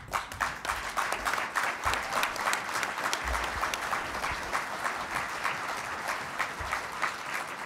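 Audience applauding, many people clapping together, the clapping thinning out toward the end.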